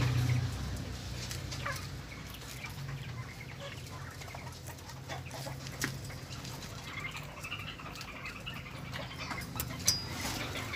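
Soft clucking and chirping animal calls over scattered small clicks and rustles, with one short high squeak near the end.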